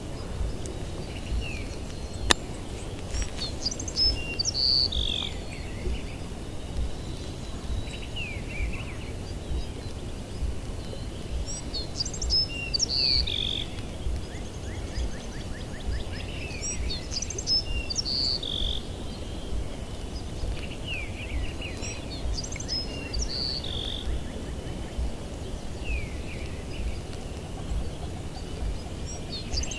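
A songbird singing the same short, quick, high-pitched phrase over and over, about every four to five seconds, over a faint steady high tone and low rumble.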